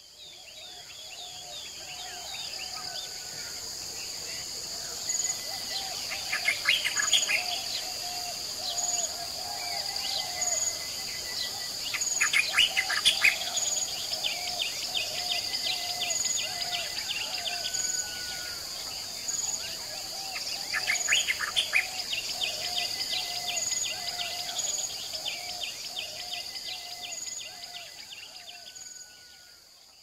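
Natural soundscape of birds calling and trilling over a steady high-pitched insect drone, with short notes repeating every second or so. It fades in at the start and fades out near the end.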